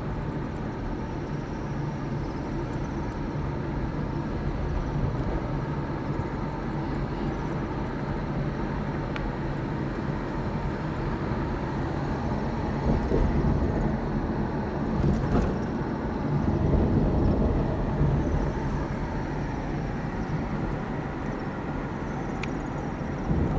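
A car's engine running with a steady low hum, swelling slightly a couple of times.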